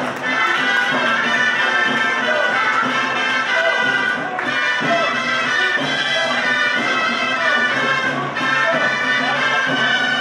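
Gralles (Catalan shawms) playing a sustained traditional melody, with brief pauses about four and eight seconds in.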